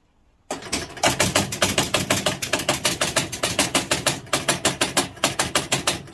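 Gottlieb Big Indian electromechanical pinball machine starting a game: its score reels click rapidly back to zero, about six or seven clicks a second, driven by the running score motor over a low hum. The clicking starts about half a second in.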